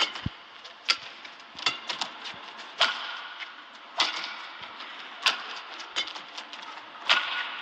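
Badminton rally: the shuttlecock is struck back and forth by racquets, sharp hits about once a second over a steady background of arena noise.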